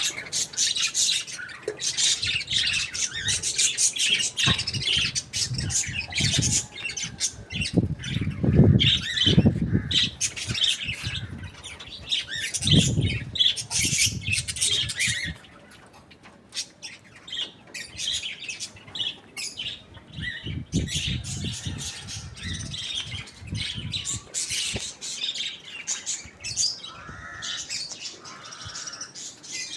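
Birds squawking and chirping in dense, rapid chatter, with several low thumps between about 8 and 15 seconds in. The calls thin out and grow quieter from about the middle.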